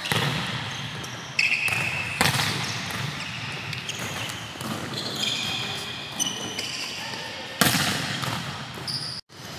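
Volleyballs being struck and hitting the court in a large, echoing gym: sharp smacks about a second and a half in, again just after two seconds and a louder one near the end. Short high squeaks and voices are heard between them.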